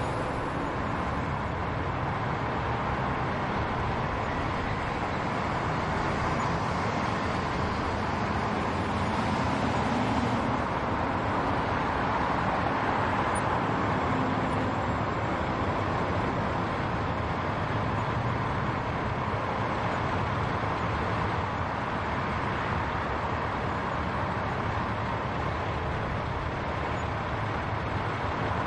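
Steady road traffic: a continuous wash of passing vehicles and tyre noise, swelling slightly about ten seconds in.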